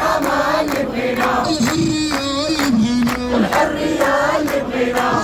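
Crowd of protesters chanting a rhyming Moroccan Arabic slogan in unison to a sung tune, carried over a steady beat of sharp strikes about three times a second.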